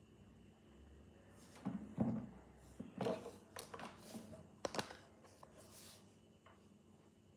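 Hard plastic and rubber dog toys being moved by hand on a tile floor: a handful of light knocks and scrapes between about one and a half and five seconds in.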